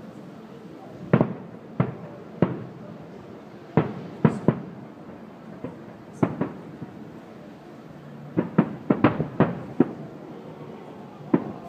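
Aerial firework shells bursting: about fifteen sharp bangs at irregular intervals, with a quick run of several bangs about two-thirds of the way through.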